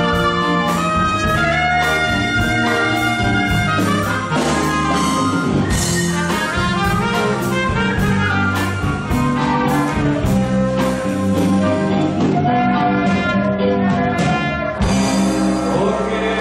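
A live band with a horn section playing, with trumpets carrying the tune over a rhythm section. The music is loud and continuous, with regular beats.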